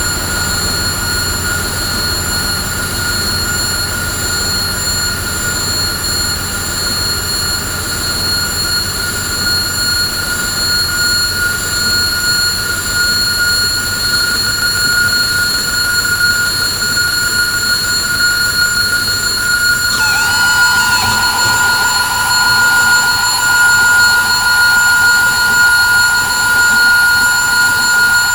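Harsh noise drone from DIY synthesizers run through distortion and effects pedals: a dense, loud wall of noise with several steady high whines over it. The low rumble thins out about halfway through, and about twenty seconds in a new tone swoops down and then holds.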